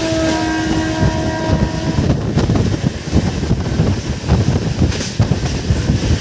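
Passenger train running, heard at an open carriage window: a steady rumble of wheels on the rails with wind buffeting the microphone. A steady horn tone sounds over it for about the first two seconds.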